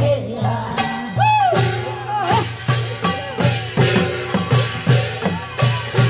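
Live Korean traditional folk music. A sung phrase trails off at the start. About a second in, a steady beat of drum and metallic percussion strokes, roughly two a second, picks up under a melody.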